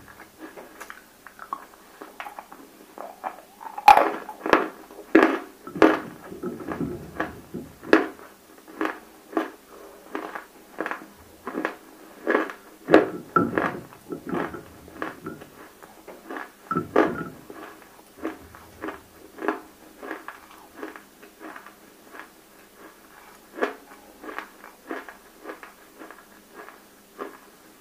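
Close-miked chewing of water-soaked, fully roasted edible clay (nakumatt): a steady run of sharp crunches, one or two a second, loudest about four to eight seconds in and again around thirteen seconds.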